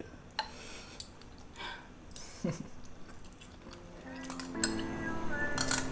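Metal fork and spoon clinking and scraping lightly against a ceramic bowl while eating, a few separate touches. Background music with held notes comes in about four seconds in.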